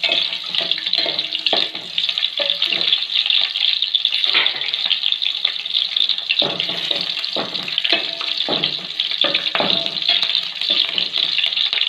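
Spices, shallots and green chillies sizzling steadily in hot oil in an aluminium pot, with a wooden spatula scraping and stirring in repeated strokes.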